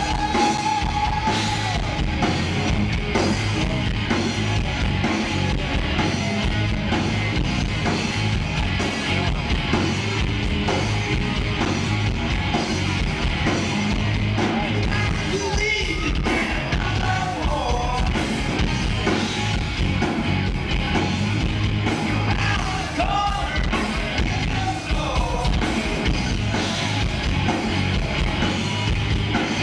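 Live rock band playing: electric guitars, bass guitar and drums, with a singing voice over them.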